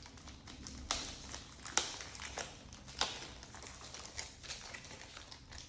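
Hands unpacking a drone's remote controller from its packaging: a few sharp clicks and knocks, the loudest about two seconds in, among lighter rustling and ticking.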